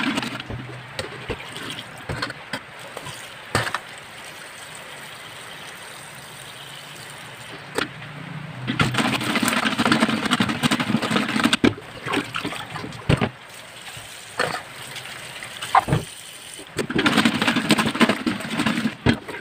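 Water sloshing and splashing in a basin in a stainless-steel sink as live crabs are washed, louder in a few spells, with scattered knocks and clicks from the shells and a metal pot lid.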